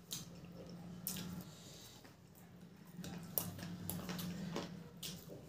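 Close-up eating sounds: wet chewing and mouth smacks from people eating samosas with tamarind chutney by hand, a string of sharp clicks over a low steady hum.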